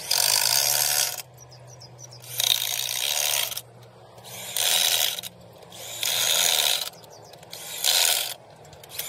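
Ratchet wrench working bolts on a truck differential, clicking in about five bursts of roughly a second each, a second or so apart.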